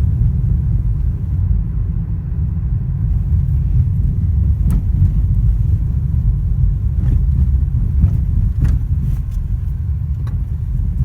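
Lada Vesta driving over uneven road: a steady low rumble with several sharp knocks, about six of them starting roughly halfway through. The knocks come from the suspension over the bumps, the sign of a suspension fault.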